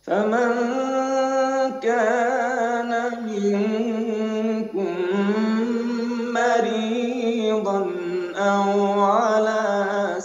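Male Quran reciter chanting in the melodic, ornamented style of Quranic recitation: several long held phrases with wavering, ornamented pitch, broken by short pauses for breath. Heard over a Zoom video-call link.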